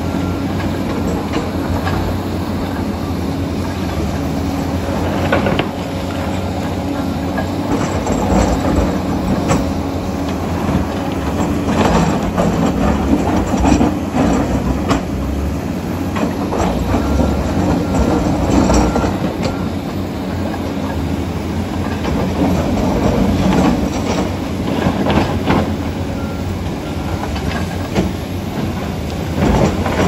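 Komatsu D85EX crawler dozer at work: its diesel engine runs under load while the steel tracks clank and rock and soil scrape and knock under the blade, with the effort swelling several times.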